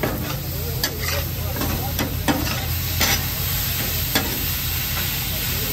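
Metal spatula scraping and chopping raw meat on a hot steel flat-top griddle while the meat sizzles. Several sharp clacks of the blade on the plate come at uneven intervals.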